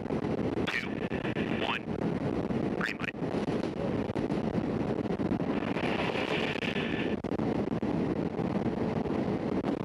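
Steady rush of airflow and engine noise inside the cargo hold of a C-17 Globemaster III flying with its rear cargo ramp open during an airdrop. A few short sweeping sounds come in the first three seconds.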